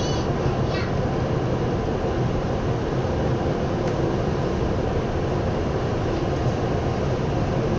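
Tokyu Oimachi Line train heard from inside the carriage while running at speed: a steady, even running noise from the wheels and running gear on the rails.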